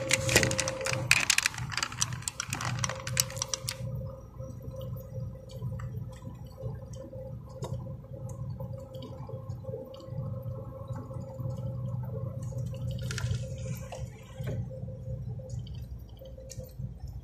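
Iveco truck's diesel engine running while driving, heard from inside the cab as a steady low hum with a steady whine. Dense crackling and rattling fill the first few seconds.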